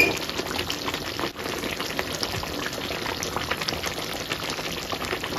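Thick chicken curry gravy boiling in an open pot, with many small bubbles popping steadily as the sauce is cooked down to thicken.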